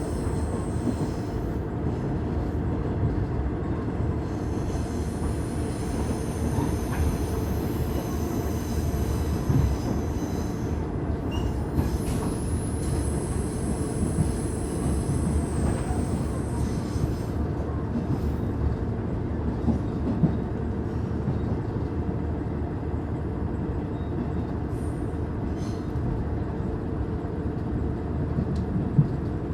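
Train running along the line, heard from on board: a steady rumble of wheels on rail and the running gear, with a high-pitched wheel squeal from about 6 to 17 seconds in.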